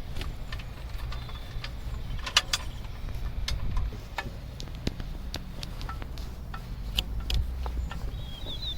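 A steady low engine-like hum runs under scattered sharp clicks and light metallic taps as the CBT back plate's mounting hardware is fitted. The strongest click comes about two and a half seconds in.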